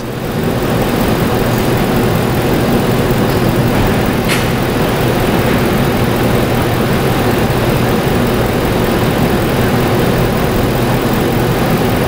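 2009 Ford E250 van's 4.6 V8 idling steadily at about 650 rpm, with cylinder 1's coil out and a pressure transducer in its plug hole, so that cylinder does not fire. The engine has a recurring misfire on cylinders 2 and 8.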